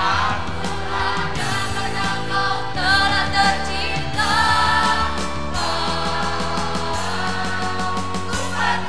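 A mixed choir of young male and female voices singing a lively song in held phrases, over instrumental accompaniment with a steady beat.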